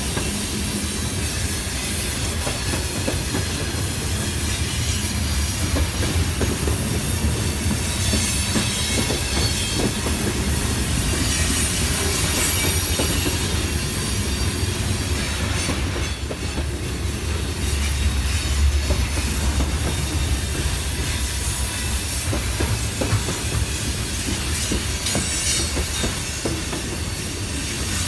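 Loaded freight hopper cars of a woodchip train rolling past on a curve, with a steady low rumble and wheel clatter. A thin, high-pitched wheel squeal comes in about halfway through and again near the end, with a louder bump just as the first squeal starts.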